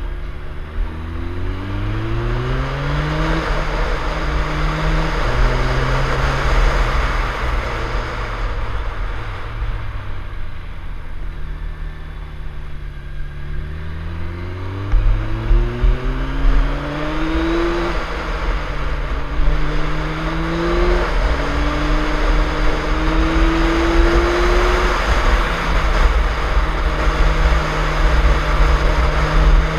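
Onboard sound of a 1989 Suzuki GSX-R 1100's inline-four engine pulling hard through the gears. The revs climb and drop back at each upshift several times, with a steady stretch in between, under a loud low rumble of wind over the camera.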